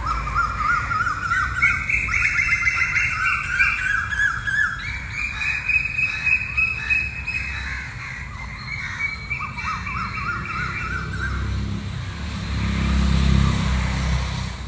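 Many small birds chirping together in quick, overlapping calls, over a low background rumble that swells near the end.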